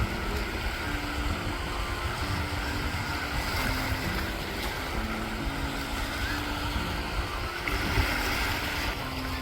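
Sea waves washing on the shore with wind buffeting the microphone as a steady rumbling rush, under a soft background melody.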